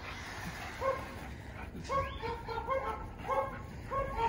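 Pit bull giving a string of short, high barks, several in quick succession, the excited calls of a dog waiting to play with a balloon.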